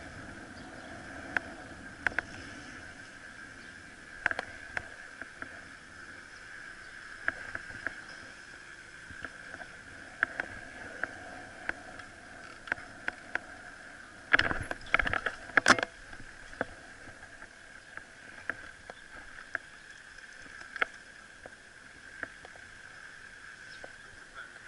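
A bicycle being ridden over pavement: a steady hum of riding noise with scattered sharp clicks and knocks from the bike and its camera mount, including a cluster of louder knocks about fifteen seconds in.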